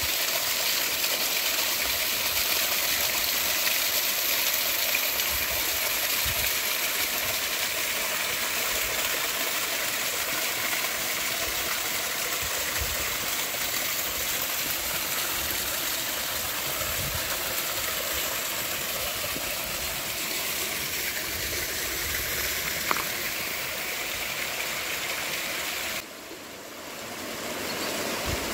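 A rain-swollen stream steadily rushing and splashing over rocks and small stone weirs. Near the end the sound drops away suddenly, then swells back.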